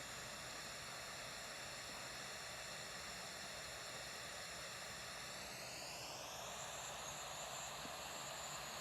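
Faint, steady outdoor hiss with the drone of a distant aircraft passing overhead, its tone sliding upward a little past halfway through.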